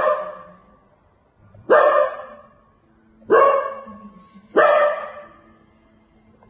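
A dog barking four times, a loud bark every second and a half or so, each one trailing off over about a second.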